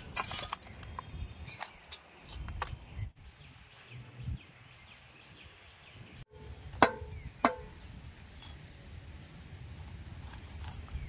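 Steel plates and utensils clattering as fish are handled, with two sharp metallic clanks that ring briefly about seven seconds in, over a low wind rumble. A brief high chirping near the end.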